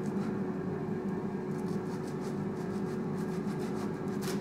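Baguette crust crackling and scratching in short runs as a strip of bread is split lengthwise with a knife and pressed open by hand, with a sharper crackle near the end. A steady hum with a faint fixed tone runs underneath.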